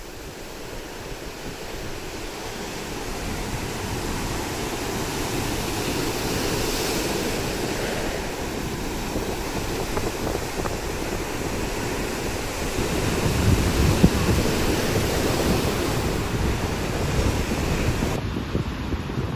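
Heavy surf breaking on the shore in the rough seas left by a typhoon, a steady wash that swells and rumbles deeper about two-thirds of the way through, with wind buffeting the microphone.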